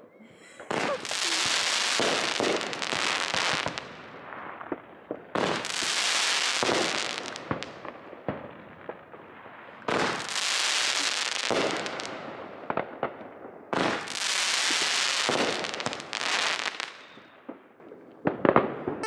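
Fireworks going off: four long hissing, crackling bursts of about three seconds each, starting sharply a few seconds apart, with scattered sharp pops between them.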